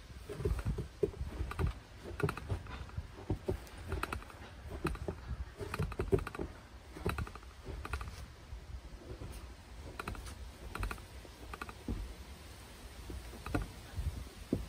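Boots crunching through fresh snow: slow footsteps, about one to two crunches a second, each a short crisp squeak-and-crunch.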